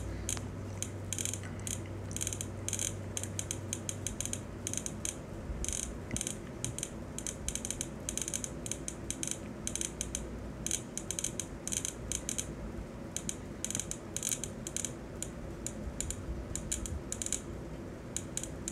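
Rapid, irregular ticking from a live lightning-strike map's alert sound. Each tick marks one lightning strike as it is detected, several a second in uneven clusters, over a faint low hum.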